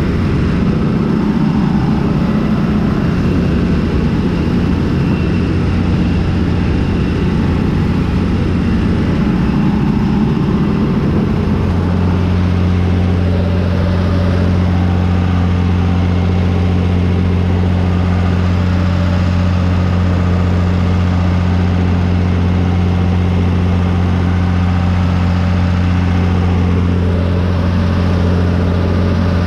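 John Deere 3350 tractor's diesel engine running steadily under load while it pulls and drives a Zmaj 222 corn picker, the picker's harvesting machinery running with it. About twelve seconds in, the sound settles into a steadier low hum.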